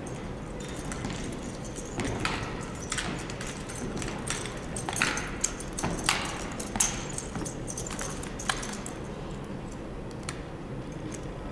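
A drill team handles its drill rifles in unison, making a run of sharp clacks and slaps as hands strike the rifle stocks. The sounds are scattered and come thickest a few seconds in, echoing in a gymnasium.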